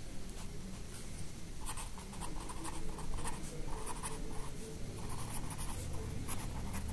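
Pen writing on paper: a run of short, irregular scratching strokes as a line of words is written out.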